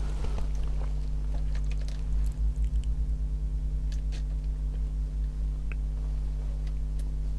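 Small parts being handled and fitted into an RC car's plastic front hub carrier: faint scattered clicks and ticks, with a brief low fluttering rumble of handling noise about two seconds in. A steady low hum runs underneath.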